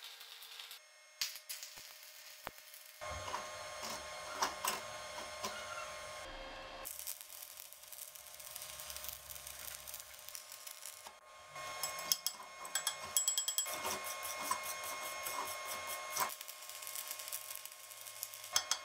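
Electric arc welding on a steel vise screw: the arc crackling steadily, with the sound changing abruptly a few times between takes.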